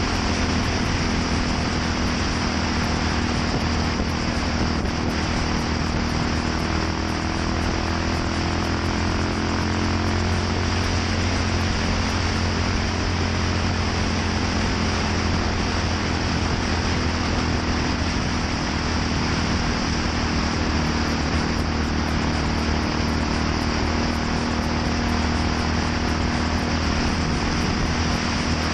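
Yamaha SR400's air-cooled single-cylinder four-stroke engine running steadily through an aftermarket NitroHeads muffler, at an even, unchanging idle.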